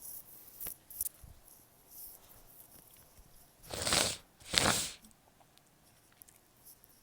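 Two small sneezes in quick succession, each a short breathy burst, the second less than a second after the first.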